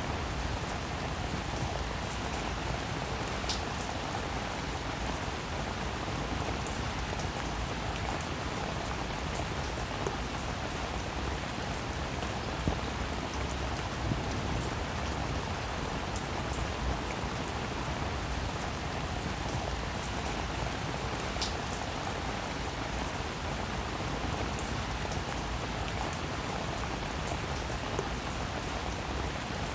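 Steady rain falling, with a dense patter of raindrops and occasional sharper individual drop ticks.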